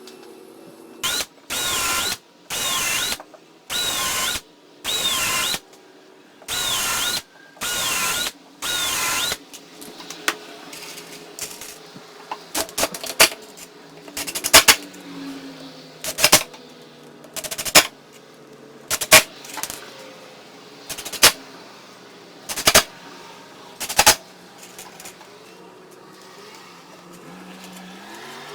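Power drill driving screws in eight short bursts, each under a second, followed by a string of sharp knocks about a second and a half apart.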